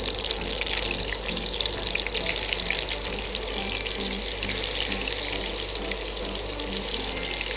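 Marinated chicken pieces frying in melted butter in a pan: a steady, dense sizzle full of small crackles. Soft background music plays underneath.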